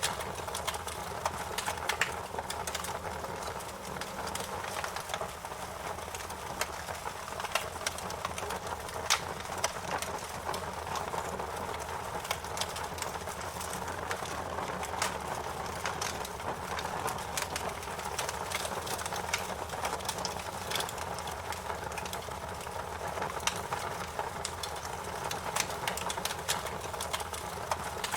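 Wood fire crackling: a steady hiss of burning with frequent, irregular sharp pops and snaps.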